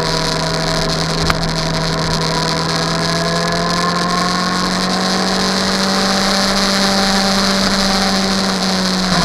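An engine running steadily: a loud, constant low drone with faint tones above it that slowly glide in pitch.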